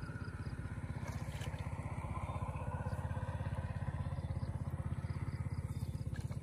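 A small engine chugging steadily with a fast, even pulse.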